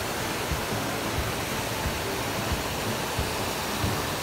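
Steady rush of water flowing over the rocks of a small creek.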